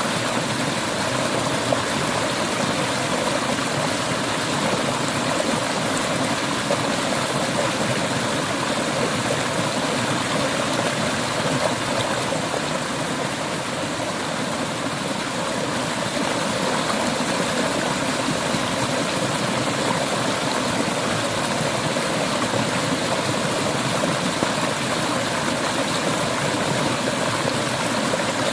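Clear mountain stream flowing over rocks, a steady rushing and babbling of water.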